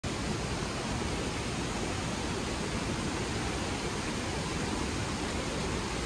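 Steady rush of a waterfall's falling water, an even hiss with no let-up.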